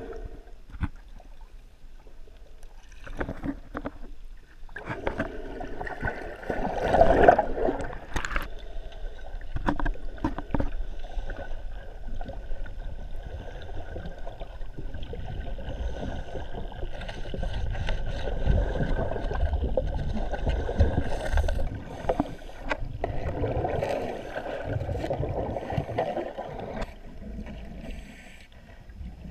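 Muffled underwater sound from scuba divers: regulator exhaust bubbles gurgling up in swelling bursts every few seconds, with scattered short knocks and scrapes of a scraper against the boat's hull.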